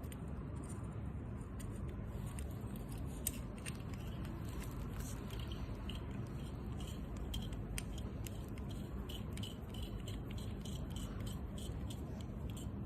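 Small clicks and light rattles of parts and hand tools being handled, over a steady low background noise.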